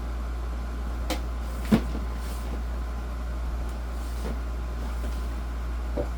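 A few short knocks and clatters from rummaging through a drawer of tools, the loudest about two seconds in, over a steady low hum.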